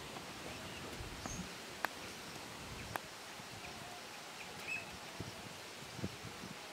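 Quiet rural ambience: a steady faint hiss with a few faint bird chirps, and two light clicks about two and three seconds in from taro stolons being scraped on a boti blade.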